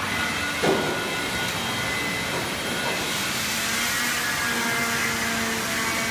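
Steady machine drone and hiss with several faint steady tones running underneath, broken by one short knock about two-thirds of a second in.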